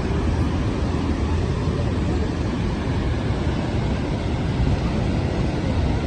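Niagara Falls' waterfall roar: a steady, loud rushing noise, heaviest in the low rumble.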